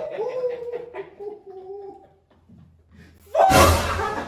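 Young men laughing: a drawn-out laugh at first, then a loud burst of laughter near the end.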